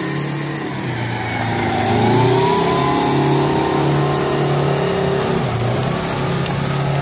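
Oshkosh M1070 tank transporter's diesel engine running under load as the truck hauls a lowboy trailer past. The engine note rises in pitch about two seconds in and then holds steady.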